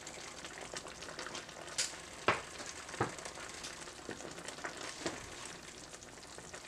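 Sliced vegetables simmering in white wine and chicken stock in a wok: a steady soft sizzle, with a few sharp clicks about two and three seconds in.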